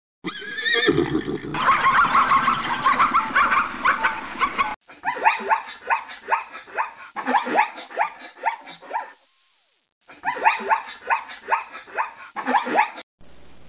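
A red deer stag roaring for about four seconds, a rough, pulsing bellow. Then plains zebra barking calls: a quick run of yelping brays in two bouts with a short pause between.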